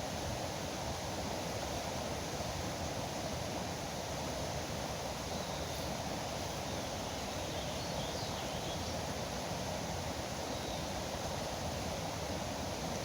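Steady rushing of river water. A few faint bird chirps sound over it in the middle.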